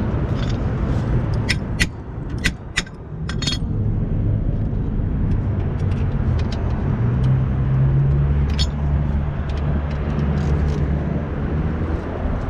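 A few sharp metallic clicks in the first few seconds, then a motor vehicle's engine running steadily with a low hum.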